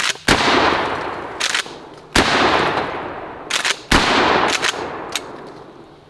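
A 12-gauge pump-action shotgun is fired three times, about two seconds apart, each blast fading away in a long echo. Short sharp clacks between the shots are the slide being pumped to chamber the next shell.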